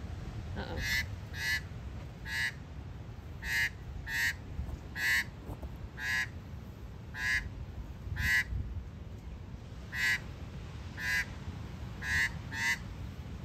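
Australian magpie giving short, harsh alarm calls, about one a second and a little irregular. It is calling at a goanna, a lace monitor, crossing its ground.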